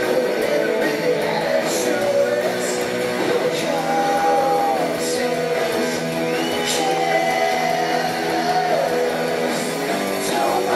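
Rock band playing live: a male singer's held, sliding vocal lines over electric guitar, at a steady loud level.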